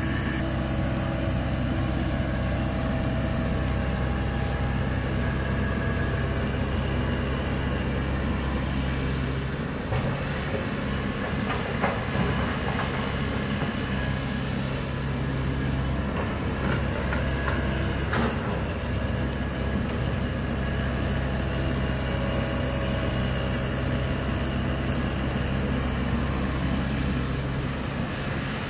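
Komatsu PC195LC excavator's diesel engine running steadily under hydraulic load as it digs and swings soil into a dump truck, with a few short knocks from the bucket and soil partway through.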